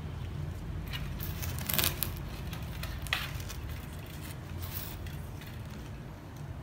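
Ficus leaves and bonsai wire rustling and crackling briefly as branches are handled and bent, a few short rustles about one, two, three and nearly five seconds in, over a steady low rumble.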